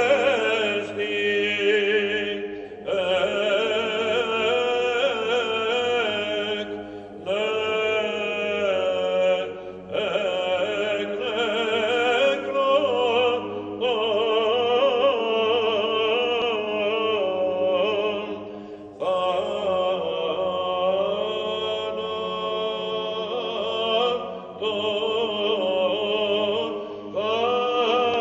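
Male choir chanting a Byzantine hymn, the melody sung in unison over a steady held low drone (the ison). The singing goes in long phrases with a handful of short breaks between them.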